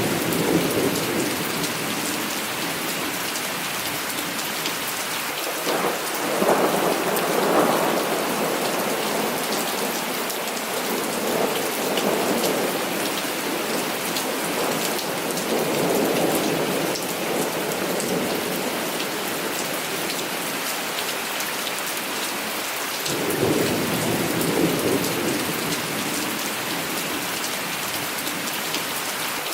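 Heavy rain falling steadily, with thunder rolling in several separate swells; the loudest rumble comes about six seconds in, and another near the end.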